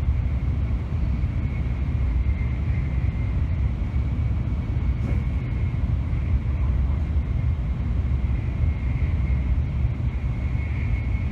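N700-series Shinkansen train running, heard from inside the passenger car: a steady low rumble with a thin, faint high whine held throughout.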